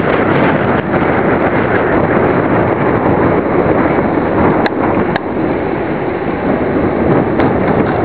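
Loud, steady wind noise buffeting the microphone of a camera on a moving push bike, with a few brief clicks in the second half.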